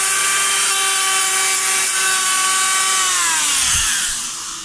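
Dremel rotary tool running at high speed cutting half-inch aluminum stock: a steady high whine over a hiss. About three seconds in it is switched off, and the whine falls in pitch and fades as the tool spins down.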